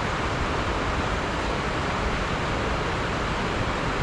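Creek water rushing over rocks and shoals, a steady even noise with no pauses.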